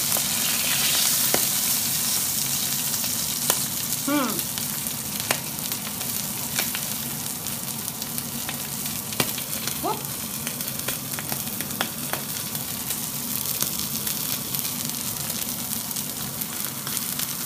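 Thick rump steak frying in hot oil in a cast-iron pan: a steady sizzling hiss with scattered pops and crackles.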